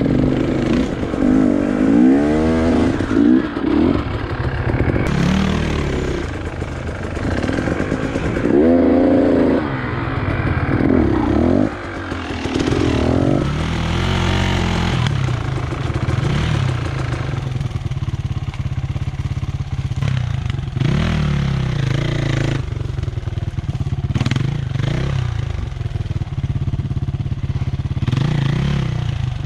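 Enduro dirt-bike engines working up a steep, rough forest trail, revving up and down in repeated bursts of throttle.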